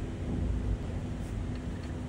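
Steady low rumble with a faint even hum, and a couple of tiny ticks near the end.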